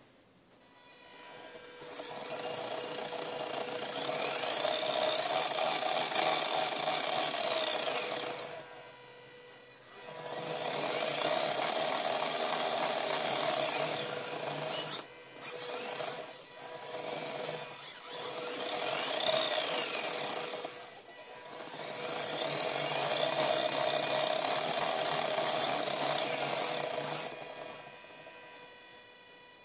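Small geared DC motor in a HUB-ee robot wheel whining, its pitch rising as it speeds up, holding, then falling as it slows, about four times over. The changes follow a second wheel being turned by hand, whose encoder counts set the motor's speed.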